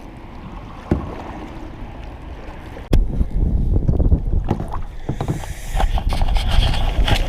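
Kayak being worked through very shallow, rocky creek water: paddle and hull knocks, a sharp one about three seconds in, followed by louder rumbling and scraping as the hull drags over the stony bottom.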